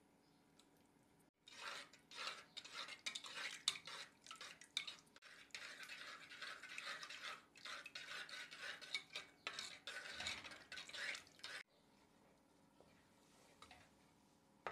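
A metal spoon stirring a thickening bechamel sauce in a metal saucepan: rapid, irregular clinks and scrapes against the pan's sides and bottom. They stop abruptly near the end, leaving only faint stirring.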